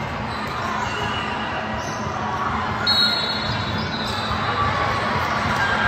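Indoor volleyball match in a large gym hall: steady noise of players and spectators on the court, with a brief high squeak about three seconds in.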